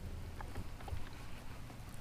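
Electric bow-mount trolling motor running with a steady low hum, with a few faint small ticks and clicks over it.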